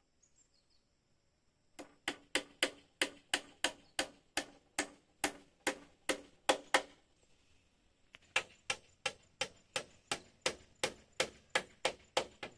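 Rapid chopping strikes on wood, about three a second, in two runs with a short pause between, each blow sharp with a brief ring.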